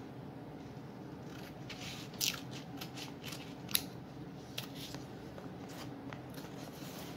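Scissors snipping through white paper, a string of short sharp snips from about a second and a half in until shortly before the end, two of them louder than the rest.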